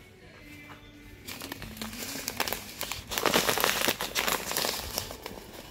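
Plastic packaging crinkling as it is handled. It starts about a second in and is loudest in the middle, with background music underneath.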